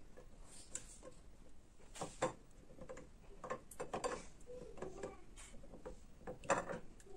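Dry bubliki bagel rings being set down, pressed and turned in milk on a ceramic plate: light, irregular knocks and taps against the plate, with the loudest knocks about two seconds in and again near the end.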